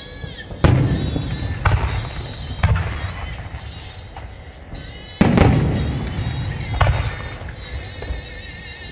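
Aerial fireworks shells bursting overhead: a string of sharp booms, five of them loud, each fading away over a second or so. The loudest comes about five seconds in.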